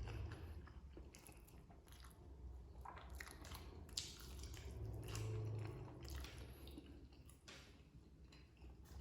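A person chewing and eating close to the microphone: irregular wet chewing and small crunches, with one sharp click about four seconds in.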